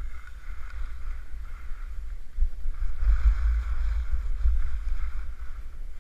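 Wind buffeting a helmet-mounted camera's microphone at skiing speed: a heavy, rough rumble that grows louder about two and a half seconds in, over a steady hiss of skis running on snow.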